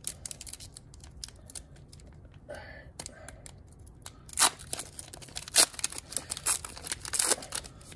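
A foil trading-card pack wrapper crinkling and being torn open by hand: a run of sharp crackles, with several louder rips in the second half.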